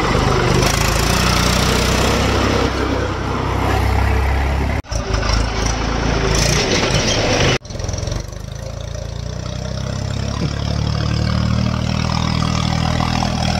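Heavy diesel engine of earth-moving farm machinery running under load. It breaks off abruptly twice, about five and about seven and a half seconds in, and in the last part the engine note climbs slowly as it works harder.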